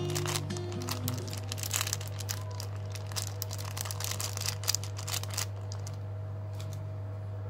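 Thin clear plastic bag crinkling and crackling as it is squeezed to empty pickled green chillies onto noodles; the crackle stops a little past halfway. Underneath is a steady low hum, with a few soft background music notes in the first second.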